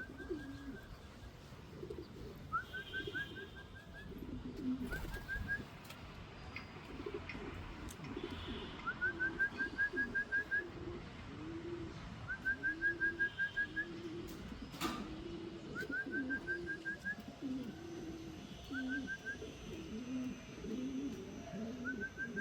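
Racing pigeons cooing over and over in low, rolling coos. Short runs of high, quick chirps come in every couple of seconds, and there is a single sharp click about fifteen seconds in.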